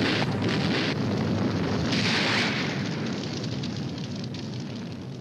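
Cartoon explosion sound effect: a loud blast that rumbles on, surges again about two seconds in, then slowly fades.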